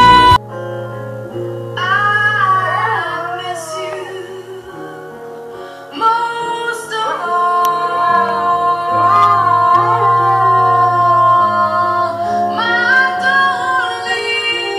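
A dog howling along to music: long wavering howls that glide up and down in pitch, in several stretches, over steady sustained chords.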